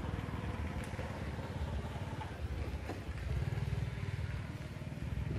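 A vehicle engine running steadily nearby, a low pulsing rumble that grows a little louder about three seconds in.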